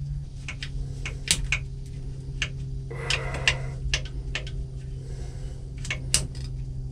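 Metal hose clamp being worked loose with a hand tool: irregular sharp metallic clicks and ticks, about a dozen, with a brief rustle about three seconds in.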